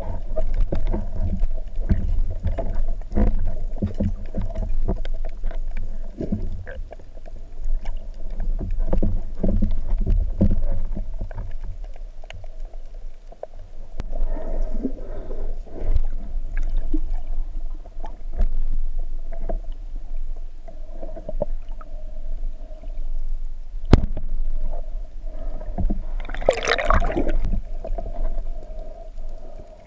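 Muffled underwater rumble of water moving past a camera housing, with scattered small clicks. About 24 s in a single sharp crack, a speargun being fired, followed a couple of seconds later by a brief hissing burst.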